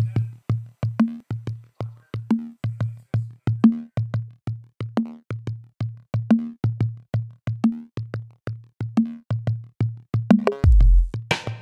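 Electronic background music: a steady drum-machine beat of about three hits a second over a repeating bass note, with a heavier, fuller beat and deep bass drum coming in near the end.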